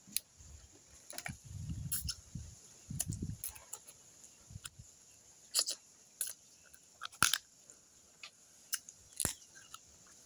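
Crab being eaten: sharp, irregular cracks and clicks of crab shell breaking, with chewing between them.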